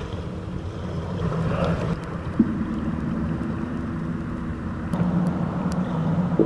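A low, steady underwater drone of held low pitches that shifts in tone about two and a half and five seconds in, with a few faint clicks.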